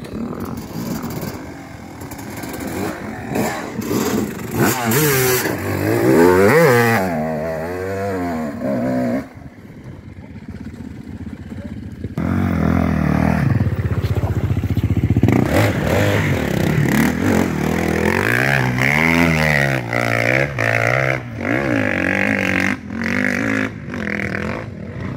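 Off-road vehicle engine revving hard several times, its pitch climbing and falling. It drops away about nine seconds in, then runs loudly again from about twelve seconds.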